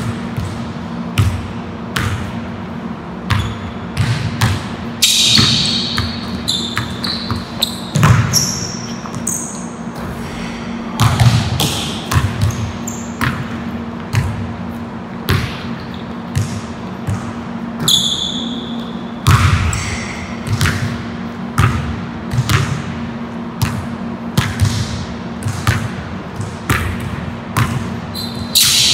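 A basketball being dribbled on a hardwood gym floor, about one bounce a second, with short high sneaker squeaks now and then. A steady low hum runs underneath.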